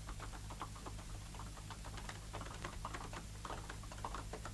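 Hoofbeats of horses on a dirt road: a fast, irregular clatter of many small strokes, fairly faint, over a low steady hum.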